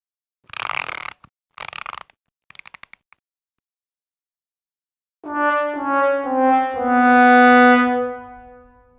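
Sad trombone sound effect: four notes stepping down, 'wah-wah-wah-waaah', the last one held long and fading, the stock comic sound for a failure. Before it come two short hissing bursts and a quick run of clicks.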